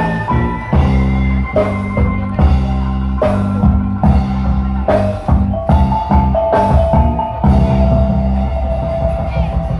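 Dance music with drums and a deep bass under a sustained melody line; the bass drops out near the end.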